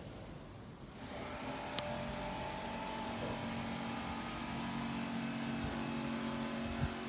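A motor vehicle's engine running steadily, coming up about a second in, with a low thump near the end.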